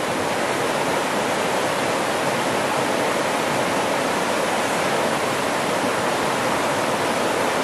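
Shallow, rocky stream rushing over stones, a steady, even rush of water.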